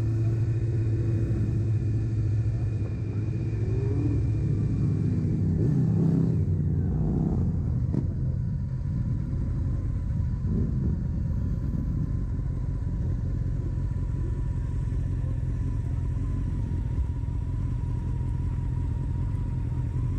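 Motorcycle engines running, with the engine pitch rising and falling as they rev in the first several seconds, then settling into a steady drone.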